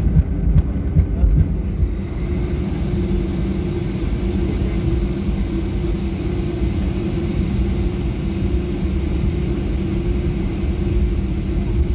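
Airliner cabin noise just after landing: a steady low rumble of engines and wheels with a steady hum over it as the plane rolls along the runway and taxis. Rattling knocks in the first couple of seconds, then an even rumble.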